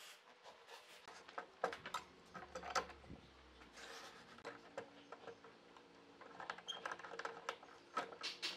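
Thin wooden strips being pressed into a curve and clamped with steel C-clamps on a wooden workbench: light wooden knocks, clicks and scraping, the sharpest knocks about two to three seconds in and another run of clicks near the end.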